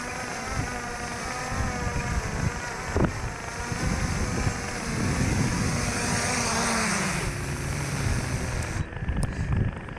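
FPV drone's electric motors buzzing with a wavering pitch. The pitch slides down from about six to eight seconds in, as the throttle comes off.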